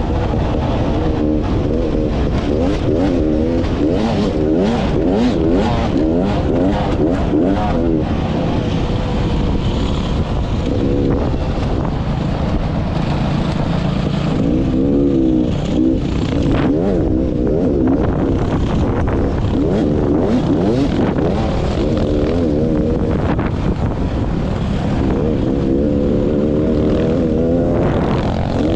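2016 Beta 300RR dirt bike's two-stroke single-cylinder engine revving hard as the bike is raced, its pitch climbing and dropping over and over.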